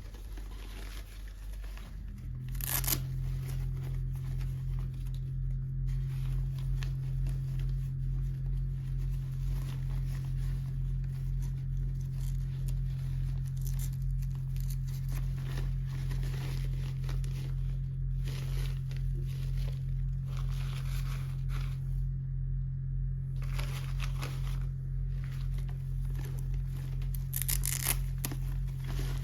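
Toy packaging being torn and crinkled open by hand, with scattered rips and crackles; two sharper tears stand out, one near the start and one near the end. A steady low hum comes in about two seconds in and continues under it.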